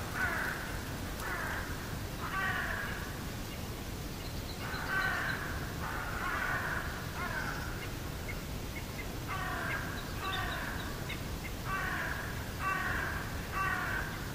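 Crows cawing repeatedly: harsh calls about half a second long, coming in runs of two or three with short pauses between.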